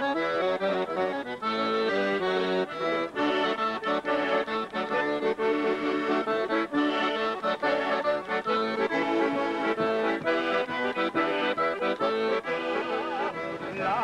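An accordion plays an instrumental passage of a traditional serenade tune, with quick runs of notes over sustained chords.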